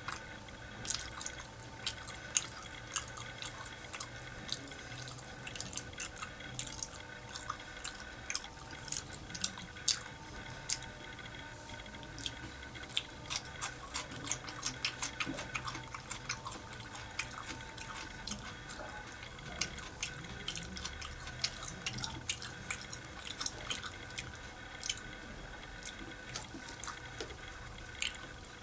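Close-miked eating sounds: wet chewing and lip-smacking, a dense irregular stream of small sharp mouth clicks, as a man eats chicken qorma, bread and lettuce salad with his fingers. A faint steady hum lies underneath.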